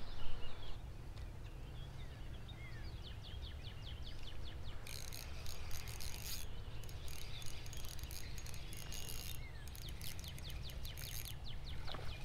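Outdoor ambience of small birds chirping and singing, with one quick run of repeated high notes, over a steady low rumble. From about five seconds in until shortly before the end there is also a dense, rapid high-pitched ticking.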